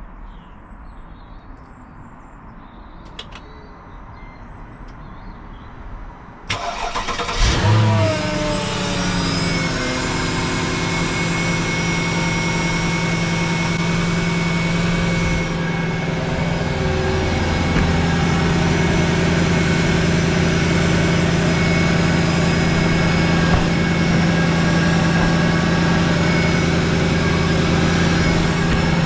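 Mercedes SLK 55 AMG's M113 5.4-litre V8 starting for the first time after a new drive pulley and serpentine belt were fitted. About six seconds in the starter cranks briefly, the engine catches with a short rev flare, then it settles into a steady idle.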